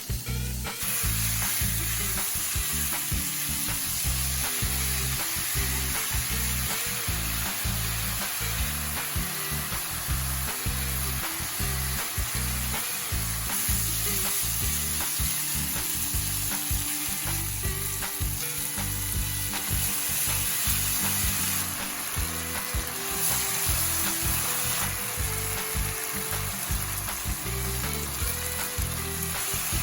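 Food sizzling steadily as it is stir-fried in a hot frying pan for spicy stir-fried pork, with light stirring. Background music plays underneath.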